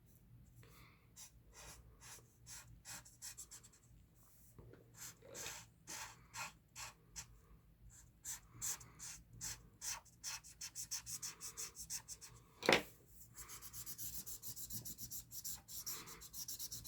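Felt-tip marker scribbling back and forth on paper while colouring in, in short strokes that quicken to several a second about ten seconds in. One sharper knock stands out just before the last few seconds.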